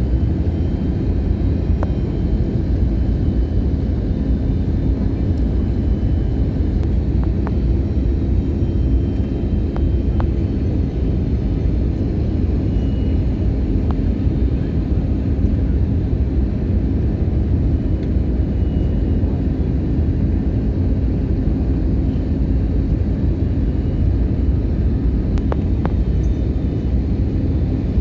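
Steady low rumble of an airliner heard from inside the cabin just after landing, with a faint steady hum and a few small clicks.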